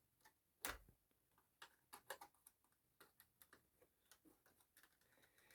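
Faint, irregular clicks and taps of the plastic casing of a Humax set-top box being handled as its front panel is worked loose, with one louder knock under a second in.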